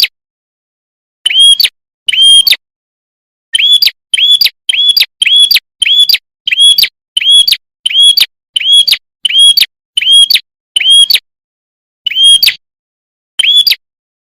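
Recorded lure call of the prenjak kepala merah: short, loud, clear chirps, each an arched whistle, repeated about two a second in a long run with a few spaced calls before and after. The gaps between calls are dead silent, as in an edited call loop made for bird trapping.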